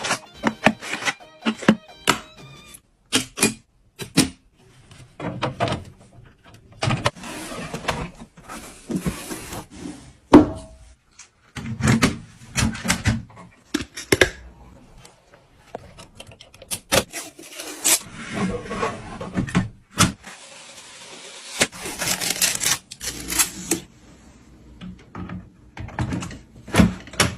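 Hands handling and fitting computer parts: irregular knocks, clicks and short scraping rustles, some sharp and loud.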